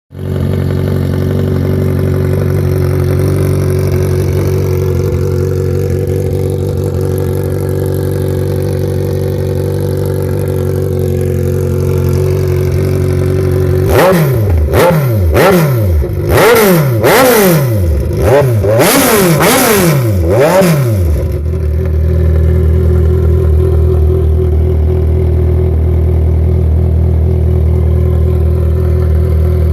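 Kawasaki Z1000 inline-four motorcycle engine, running through de-catted custom slash-cut exhausts and very loud. It idles steadily, then about halfway through is revved in about seven quick throttle blips that each rise and fall, then settles back to idle.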